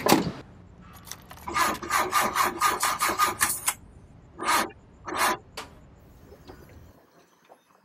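Rasping, scraping strokes: a quick run at about four a second for two seconds, then two more single strokes.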